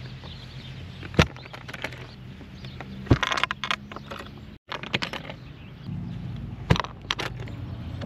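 Metal latches on a hard-shell rooftop tent being unfastened by hand: sharp clicks about a second in, around three seconds and near the end, each of the later two followed by a short rattle. A steady low hum runs underneath.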